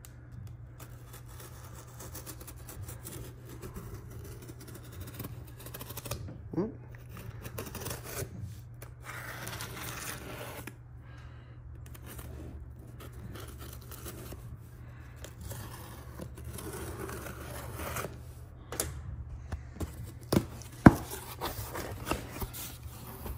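Cardboard shipping box being torn open by hand: tape and tear strip ripping, with cardboard rustling and scraping, and a sharp knock near the end. A steady low hum runs underneath.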